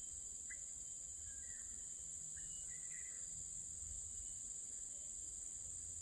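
Steady high-pitched chorus of insects, with a few short faint chirps in the first half.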